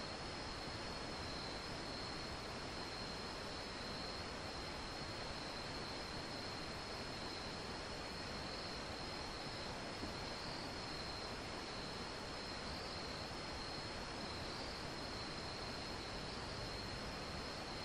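Faint, steady high-pitched trilling of insects over a constant hiss.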